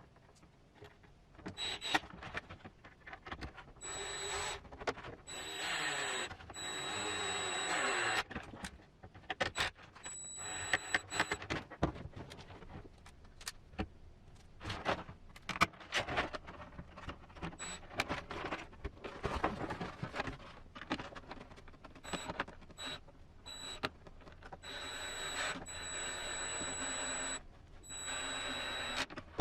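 Small electric screwdriver running in short bursts of a second or two with a steady high whine, driving screws into hard plastic. Clicks and knocks of plastic parts being handled fall between the bursts.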